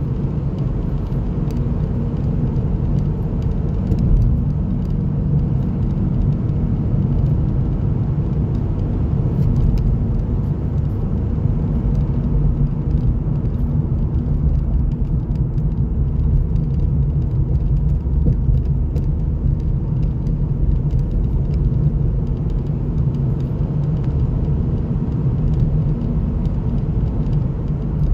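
Steady low rumble of a car driving, engine and tyres on the road, heard from inside the car's cabin.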